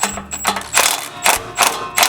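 Ratchet wrench clicking through quick repeated strokes, about three a second, working on an exhaust-manifold bolt.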